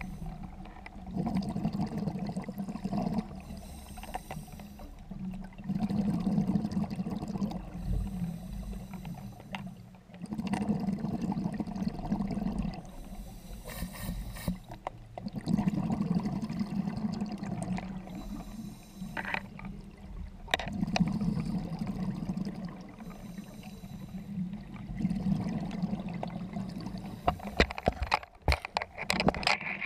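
Scuba diver breathing underwater through a regulator: each exhalation releases a burst of bubbling lasting about two seconds, repeating about every five seconds, with quieter stretches between. A quick run of sharp clicks near the end.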